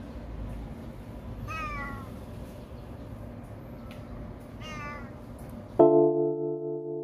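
An elderly 16-year-old cat meowing twice, each a short call falling in pitch, over a faint steady background hum. Near the end, music with sustained keyboard chords starts abruptly, louder than the meows.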